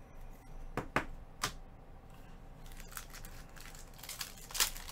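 Gloved hands handling a trading card and a rigid plastic toploader: a few sharp plastic clicks about a second in, then crinkling and rustling of plastic and pack wrappers near the end.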